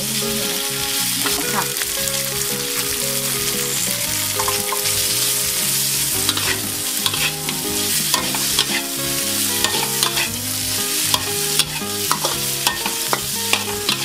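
Tofu cubes and sliced shiitake mushrooms sizzling in hot oil in a wok while a metal spatula stirs them, scraping and clicking against the wok throughout, with the clicks coming thicker near the end.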